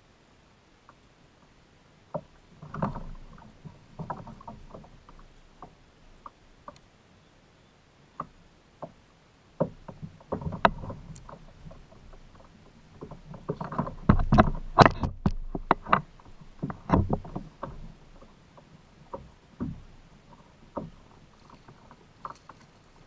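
Irregular knocks, clicks and clatter on a fishing kayak, like paddle and gear being handled against the hull. The sounds come in scattered bursts and are busiest a little past the middle.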